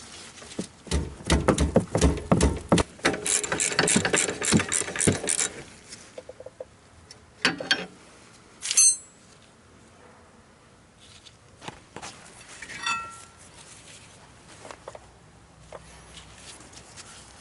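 Ratchet wrench clicking rapidly as an 18 mm rear caliper bracket bolt is spun out, followed by a few scattered metal clinks and a short squeak as the bolt and bracket come free.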